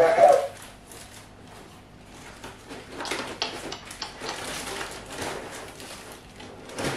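Crinkly rustling of plastic wrapping and paper as wrapped items are lifted out of a cardboard box, in irregular crackling bursts that are busiest in the middle. A brief voice sound comes right at the start.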